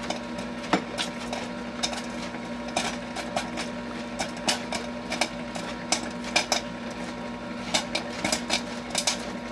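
Coca-Cola retro kettle popcorn popper running mid-batch: a steady hum from the machine with irregular sharp pops of kernels bursting in the kettle.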